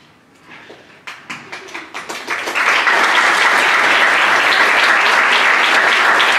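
Audience applauding: a few scattered claps about half a second in, building into full, steady applause by about two and a half seconds.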